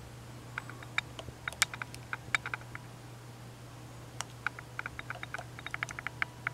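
Light, rapid clicks in two runs, one about half a second in and another from about four seconds, over a faint steady low hum.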